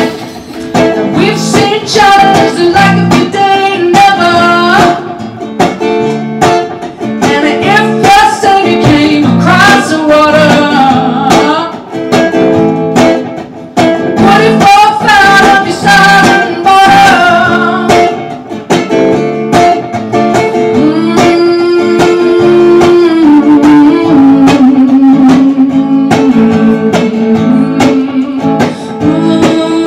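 A woman singing to her own strummed electric guitar. The voice drops out for stretches while the guitar carries on, most of all in the last third.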